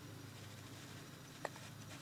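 A baby hiccuping once, briefly, about one and a half seconds in, over a faint steady low hum.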